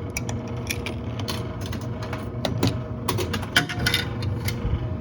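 Quarters clinking and rattling through a vending machine's coin mechanism and down into the coin return, a quick run of metallic clicks that is busiest in the second half, over a steady low hum.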